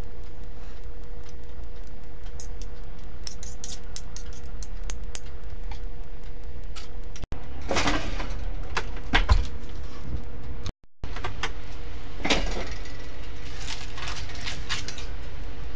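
Light metallic clinking and rattling of a foil-lined metal tray against an oven's wire rack, over a steady low background noise. The loudest clatter comes about eight seconds in as the tray goes onto the rack, and again about twelve seconds in as it is pulled back out.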